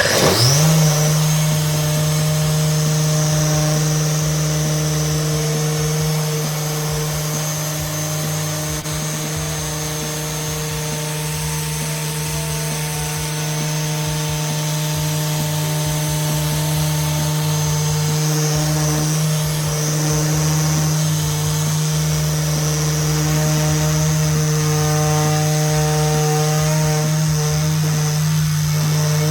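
Dual-action polisher spinning up, rising in pitch for about half a second, then running at a steady speed with an even motor whine while it buffs compound into a headlight lens.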